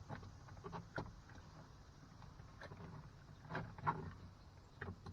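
Irregular light clicks and taps from prying at a car's plastic door-panel trim with a pocket knife, over a steady low hum. A couple of louder clicks come toward the end.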